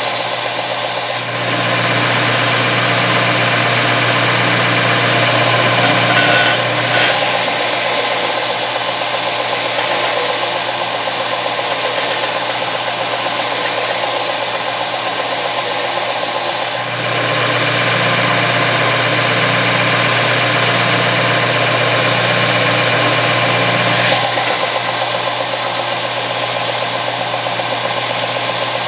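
Bench belt sander running, with a metal part held against its belt and sanded. Its steady hum and high whine change twice for several seconds as the part is pressed and shifted on the belt. The part's edges are being smoothed so they won't cut a winch rope.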